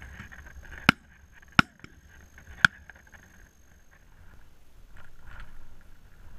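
Wind rumbling on the microphone, with three sharp, loud cracks in the first three seconds.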